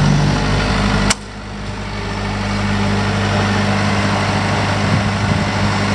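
Genesys acoustically lined diesel generator set running with a steady low engine hum. About a second in there is a sharp click, the sound drops, then builds back up over a couple of seconds and settles into steady running.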